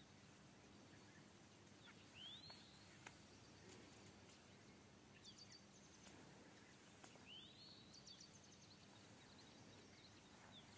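Near silence: faint outdoor ambience with a small animal's high chirp, rising then falling, heard twice, about two and seven seconds in.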